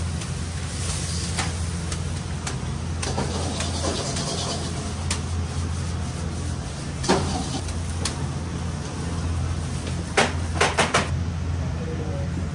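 Ramen shop kitchen at work: a steady low machine hum with scattered sharp knocks and clinks of kitchen utensils, and a quick run of knocks about ten seconds in.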